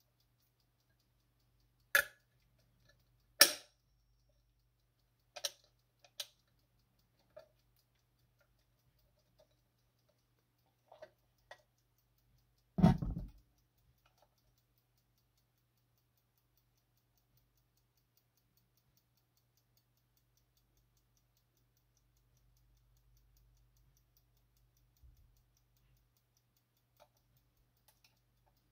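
Brass ship's clock being handled and turned over: a few irregular sharp clicks and knocks of metal against fingers and the case, the loudest about three and a half seconds in, a duller thump around thirteen seconds, then only faint scattered clicks.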